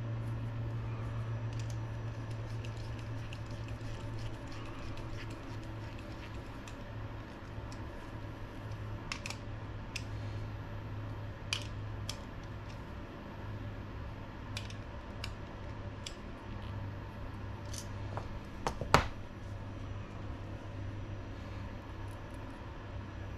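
Small clicks and taps of metal RC shock shafts, pistons and a plier-style shock tool being handled, scattered and irregular, with one sharper knock about 19 seconds in. A steady low hum runs underneath.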